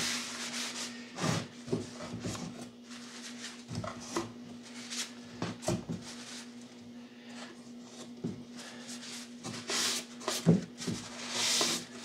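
A cloth rubbing over a freshly glued wooden box jig, with scattered light knocks of the wood being handled on the bench, the loudest about ten seconds in. A steady low hum runs underneath.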